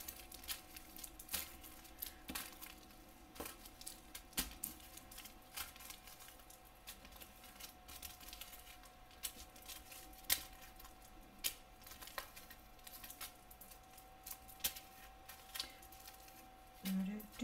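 Small plastic zip-lock bags of diamond-painting drills being handled and shuffled on a canvas: scattered plastic crinkles and light clicks.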